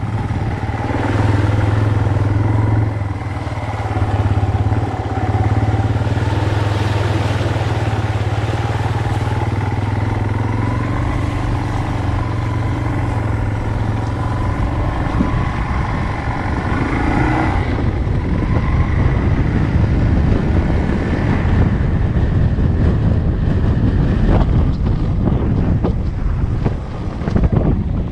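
Motorcycle engine running steadily while riding along a dirt track, its note shifting a little with the throttle. Past the middle the sound turns rougher and noisier.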